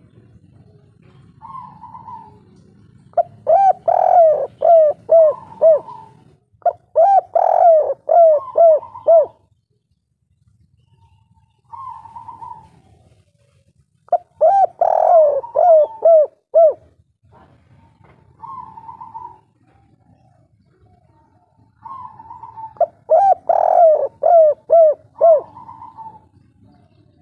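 Spotted dove (tekukur) cooing in the kuk-3 song style: four loud bouts, each led in by a softer, higher note and followed by a quick run of about five or six lower, hooked coos, with pauses of a few seconds between bouts.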